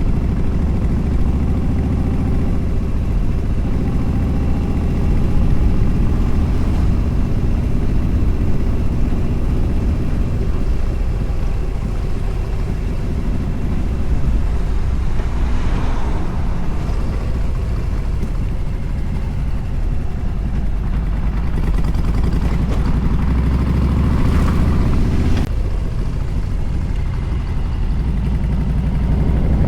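Motorcycle running at highway speed, with wind rushing over the microphone; the engine note shifts a few times, notably near the start and about three quarters of the way through.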